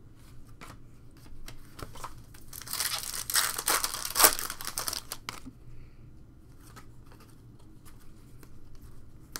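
A foil trading-card pack wrapper torn open and crinkled, the loud tearing about two and a half to five seconds in. Light rustling and clicks of the wrapper and cards come before and after it.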